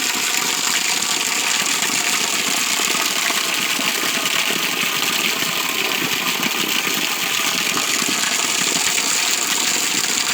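Small waterfall rushing in a steady, loud roar of water, its flow swollen by recent heavy rain.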